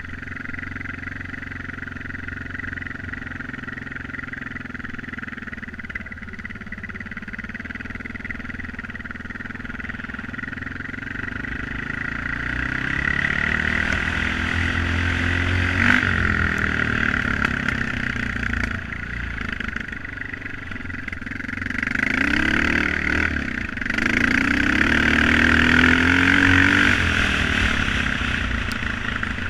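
Honda XR650 dirt bike's single-cylinder four-stroke engine running under way on a rough dirt trail, its note rising and falling with the throttle. It climbs strongly about halfway through and again in the last third before easing off.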